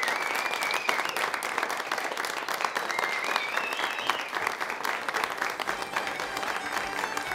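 A roomful of people clapping steadily, the applause easing slightly toward the end.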